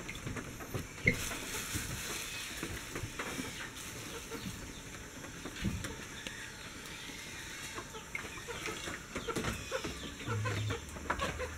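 Chickens clucking nearby, with scattered small clicks and rustles from hands working among plastic bags.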